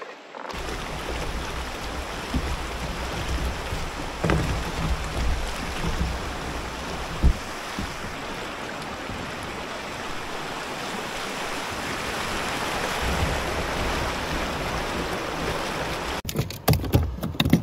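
Rushing whitewater of a shallow, rocky creek rapid as a kayak runs through it: a steady loud rush, with a single sharp knock about seven seconds in. About sixteen seconds in the rush cuts off and a quick string of clicks and knocks follows.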